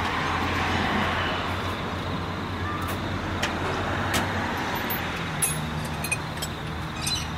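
Road traffic going by: a steady vehicle hum and hiss that swells and eases off, with a few faint clicks.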